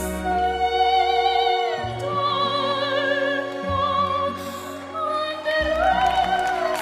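A young girl singing an operatic aria in a classical soprano voice, holding long notes with vibrato over orchestral-style backing music with sustained low notes.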